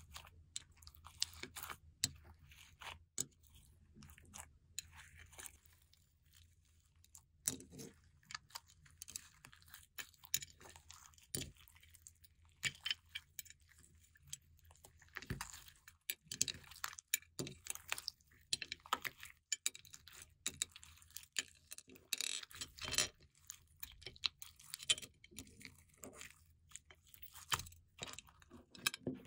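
Hands squeezing and kneading clear slime packed with beads, glitter and sequins: irregular sticky crackles and clicks, with denser bunches of crackling now and then.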